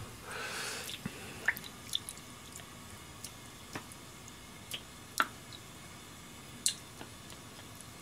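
Wet ito konnyaku noodles lifted from a plastic tub of water and dropped into a pan of simmering oden: a brief wet splash at first, then scattered drips and small squishy plops about once a second.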